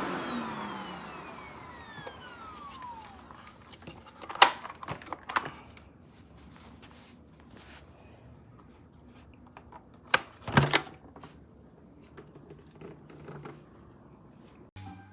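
Upright vacuum cleaner's motor winding down after being switched off, its whine falling in pitch and fading over about three seconds. This is followed by a few sharp clicks and knocks, one pair about four and a half seconds in and another about ten seconds in.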